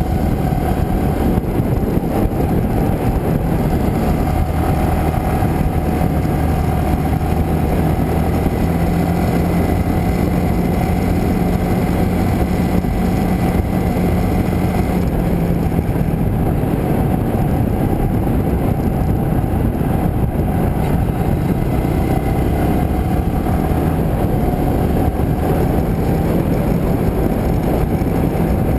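Motorcycle riding along a road, heard from a camera mounted on the bike: a steady engine drone mixed with wind rush. The engine note grows stronger and steadier for several seconds around the middle.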